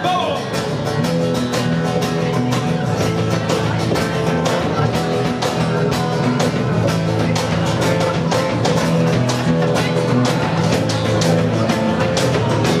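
Live band music with a steady drum beat, bass and guitar, played loud without a break.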